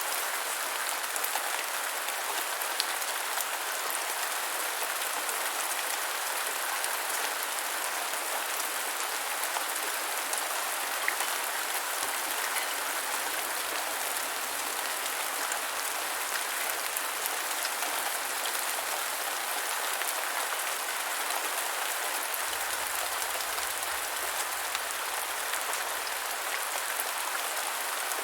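Steady rain falling on the ground, a dense even hiss of many small drops with scattered individual drop ticks.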